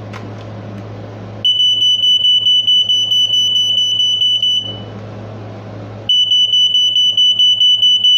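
Household smoke detector sounding its alarm during a test: a piercing high-pitched tone held for about three seconds, then a pause of about a second and a half before it sounds again.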